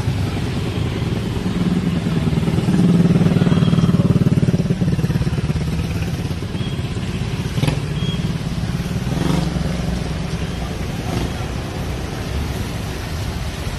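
Small motorcycle engine running on the street, loudest about three seconds in and easing back after about five seconds, over general street traffic noise.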